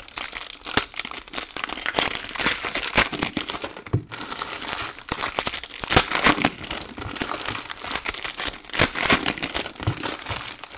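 Shiny foil trading-card pack wrappers being torn open and crumpled by hand: continuous crinkling with many sharp crackles.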